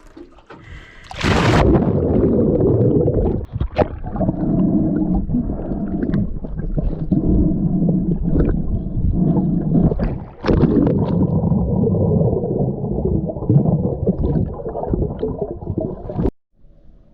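A splash about a second in, then loud, muffled underwater rumbling and gurgling as a snorkeler swims and dives. It cuts off suddenly near the end.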